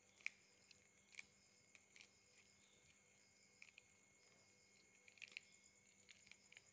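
Faint, steady high-pitched chirring of crickets, with a few soft clicks scattered through.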